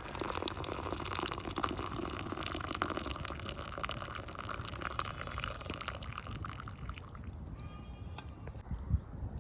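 Liquid dripping and trickling: many small drips over a steady hiss.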